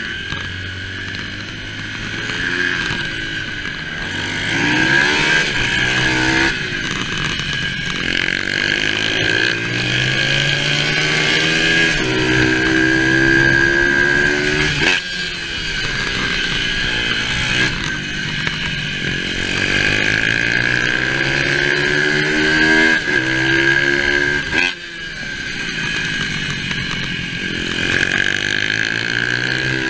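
Symoto 140 pit bike's small single-cylinder four-stroke engine, ridden hard: it revs up through the gears in repeated rising sweeps, drops back between them, and rises again out of the corners.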